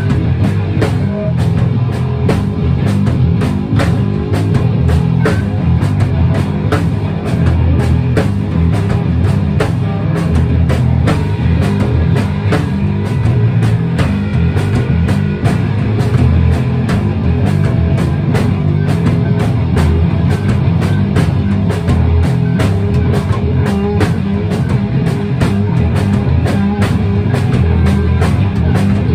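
Live band playing loud heavy rock: electric guitars over a drum kit, with continuous steady drumming.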